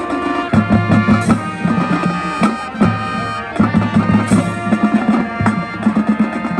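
High school marching band playing: sustained brass and wind chords over drums, with frequent sharp accented hits.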